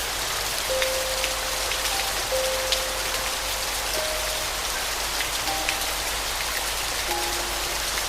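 Steady rain falling, with scattered individual drops, under a soft, sparse piano melody of single held notes a second or so apart.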